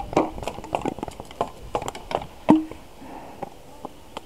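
Paintball markers firing: an irregular series of sharp pops, several in quick succession, the loudest about two and a half seconds in with a short ring, thinning out over the last second.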